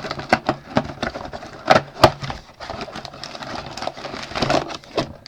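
Hands opening a cardboard trading-card box: rustling and scraping of cardboard and wrapping, broken up by many sharp clicks and small tears.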